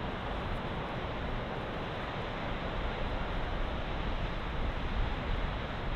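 Steady wind noise with an uneven low rumble from wind buffeting the microphone.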